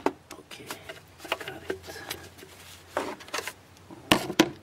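A wrench working on the metal fitting of a power steering high-pressure hose, making irregular clicks, scrapes and knocks as it tries to break the fitting loose. Two sharp knocks come about four seconds in.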